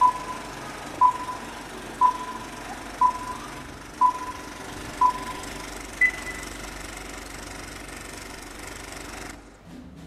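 Film-leader countdown sound effect: a short beep once a second, six times, then a longer, higher beep, over the steady clatter of a running film projector. The projector noise cuts off suddenly near the end, as if the film had snapped.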